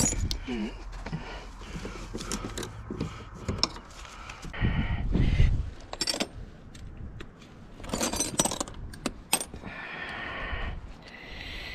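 Steel wrenches and sockets clinking and rattling against each other as a gloved hand rummages through a tool bag, with a dull low thump about five seconds in.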